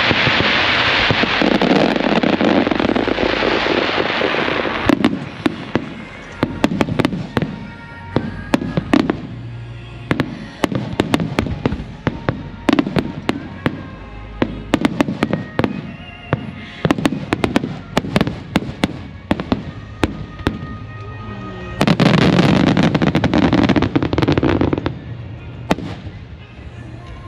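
Fireworks display: a rapid series of aerial shell bursts and sharp bangs. Two spells of dense continuous noise come at the start and again about 22 seconds in, with scattered bangs between them.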